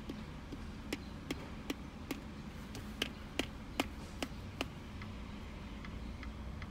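Fingertip tapping on the hard plastic shell of a Hatchimals toy egg: an even run of light taps, about two or three a second, that grows softer after about four seconds.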